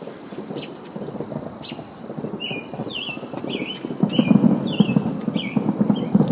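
Distant fireworks going off in a dense barrage of overlapping pops and rumbling crackle, which thickens and grows louder about four seconds in. A bird gives a short falling chirp over it, two or three times a second.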